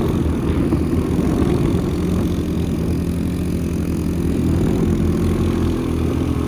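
ATV engine running steadily while riding, its pitch wavering slightly as the throttle changes.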